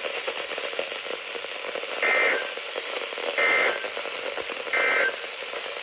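Three short, screechy two-tone data bursts about a second and a half apart over steady radio hiss: the EAS/SAME end-of-message (EOM) code that closes a NOAA Weather Radio alert broadcast.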